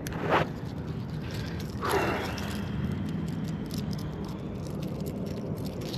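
Fishing with a spinning rod and reel: two brief swishes, then a run of fine rapid ticking from about two seconds in, over a steady low hum.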